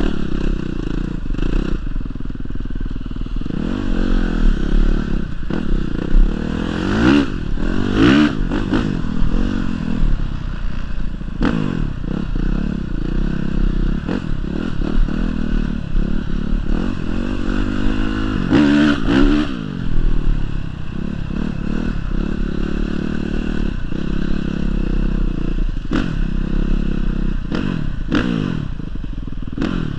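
Honda CRF450 dirt bike's single-cylinder four-stroke engine, revving up and down several times while riding across sand, with frequent short knocks and clatter.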